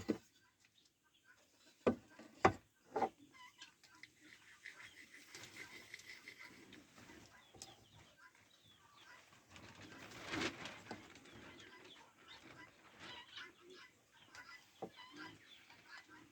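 A few sharp clicks and knocks of small wooden pieces being handled for gluing, over faint bird calls in the background.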